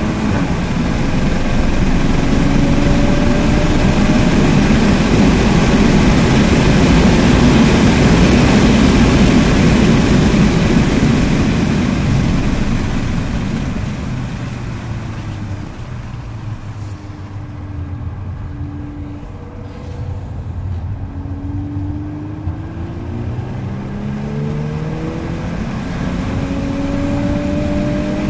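2022 Volkswagen Golf R (Mk8) heard from inside the cabin on track, its turbocharged four-cylinder under hard acceleration with loud wind and road noise. About halfway through the noise drops and the engine note falls as the driver eases off. Near the end the note climbs again under acceleration.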